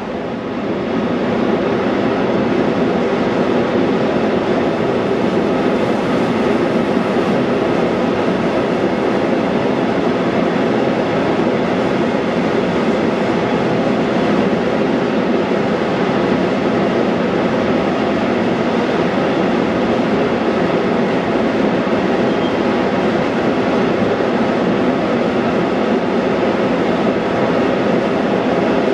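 Long freight train of tank wagons rolling past, a steady noise of wheels on rails with several steady tones running through it.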